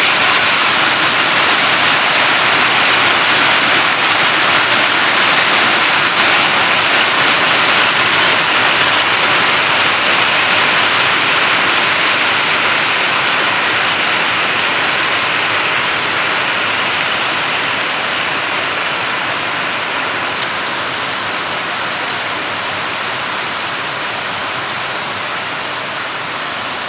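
Heavy rain pouring steadily onto corrugated metal carport roofing and paving, a loud even hiss that eases slightly toward the end.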